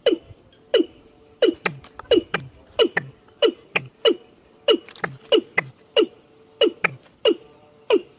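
Bird call played through a speaker as a lure: short notes falling sharply in pitch, repeated steadily about one or two a second, some in quick pairs.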